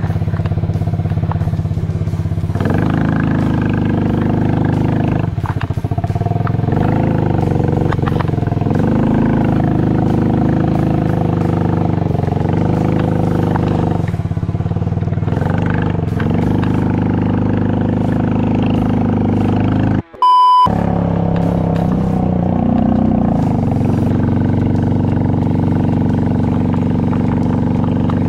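Mini quad's small engine running under load, revving up and down again and again as the tracked quad is driven through snow; it is short on power with its stock sprocket. About two-thirds through the sound cuts out briefly under a short electronic beep.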